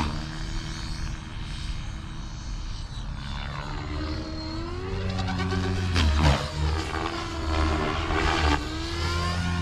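Blade Fusion 550 electric RC helicopter flying fast passes: a steady low rotor buzz under a layered tone that glides up and down in pitch as it sweeps past, loudest about six seconds in.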